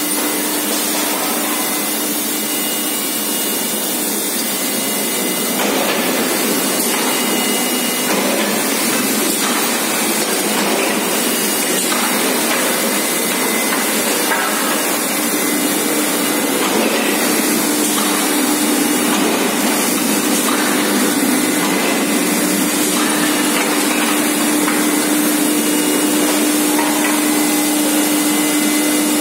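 Steady loud forge-shop machinery noise: a continuous hiss with a low steady hum that grows stronger about halfway through, and no distinct hammer or press blows.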